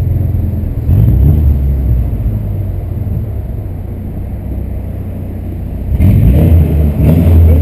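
VW Santana's AP 2.0 four-cylinder engine and exhaust, given throttle twice: a surge about a second in that eases off, then another strong surge near the end.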